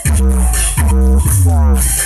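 Bass-heavy dance music: deep sustained bass notes under short sliding vocal-like phrases and a steady high hi-hat hiss, played loud for an active-speaker sound test.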